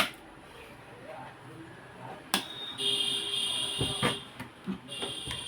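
Electronic beeping from a device on the repair bench: a steady high tone held for about a second and a half, then again near the end, with sharp clicks and a few knocks of tools being handled.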